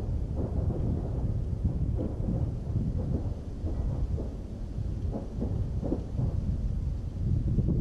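Wind buffeting the microphone: a continuous low rumble that rises and falls in uneven gusts.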